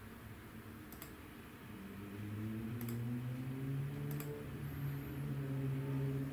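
Computer mouse button clicking three times, sharp separate clicks about a second, three seconds and four seconds in. Under them a low hum of several steady tones sets in about two seconds in and grows louder.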